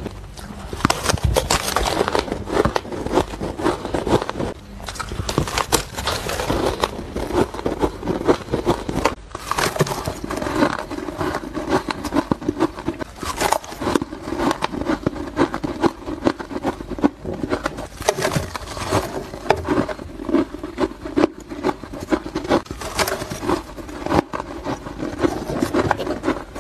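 Close-up crunching of shaved ice and freezer frost being bitten and chewed: dense, crackly crunches bite after bite, with a brief break about nine seconds in. A faint steady hum sits behind the crunching in the later part.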